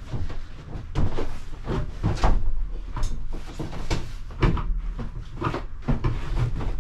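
A heavy double passenger seat being shifted about on the van floor, with irregular knocks and bumps.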